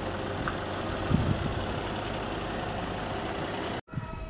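A motor vehicle's engine running steadily with outdoor street noise and a couple of low knocks. Near the end it cuts off abruptly to water trickling from a dragon spout into a stone purification basin.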